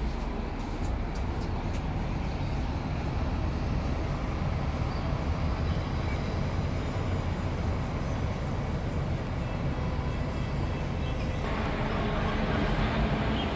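Steady low rumble of distant city traffic and rail yard heard from high above. It grows fuller about eleven and a half seconds in, with a faint hum over it.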